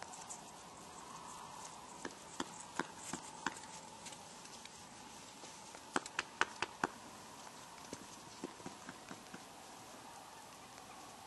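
Quarter Horse's hooves knocking on frozen, icy ground as it shifts and steps in place. There is a run of about five sharp knocks about two seconds in, a quicker cluster of five around six seconds, then a few fainter ones, all over a faint steady hum.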